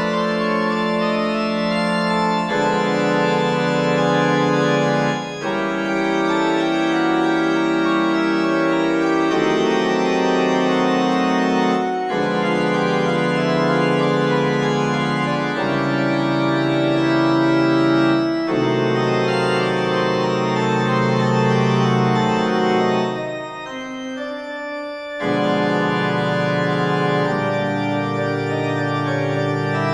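Organ music: sustained chords that change every two to three seconds, with a brief quieter passage a little after two-thirds of the way through.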